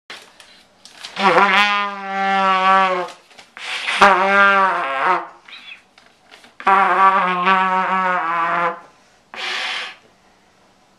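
Trumpet blown by a first-time player: three long low notes, each about two seconds, all on roughly the same pitch and unsteady as they begin. Near the end comes a short puff of air with no note.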